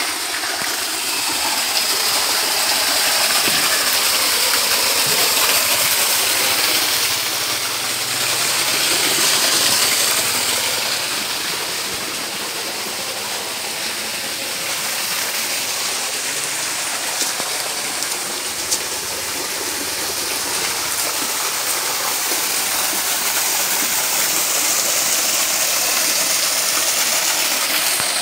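Water gushing steadily into a fish pond from an inlet at its rocky edge, a continuous rushing splash.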